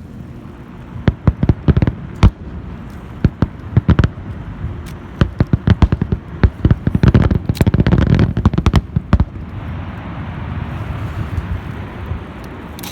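Aerial fireworks going off in a rapid series of sharp booms that thicken into a dense barrage, then give way to a steady rushing noise over the last few seconds.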